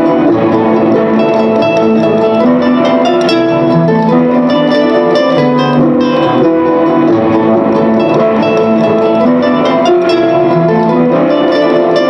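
Live solo instrumental music: many overlapping plucked-string notes ringing together in a dense, steady texture.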